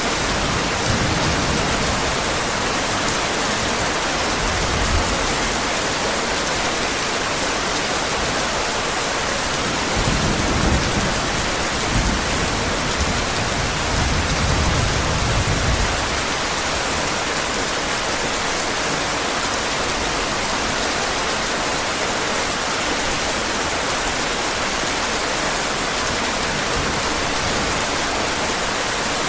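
Steady heavy rain, an even hiss of rainfall with no let-up. A low rumble of thunder swells in about ten seconds in and fades out around sixteen seconds.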